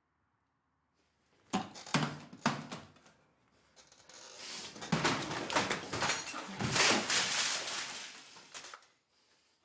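Three thumps about half a second apart, then several seconds of busy clattering and rustling that fades out.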